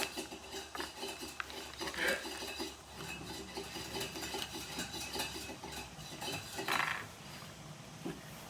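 Small hard pieces clinking and rattling as they are handled, in many light scattered clicks, with a brief rustle near the end.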